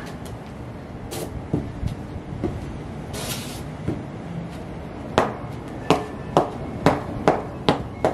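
Ugg sheepskin boots tapping and scuffing on a concrete floor: a few soft taps and one short scrape, then from about five seconds in a run of sharper taps, about two a second. Steady outdoor background noise underneath.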